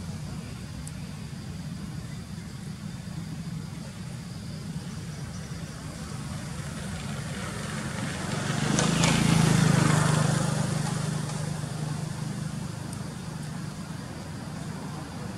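A motor vehicle driving past, its engine and tyre noise building to a peak about nine seconds in and then fading away, over a steady low traffic hum.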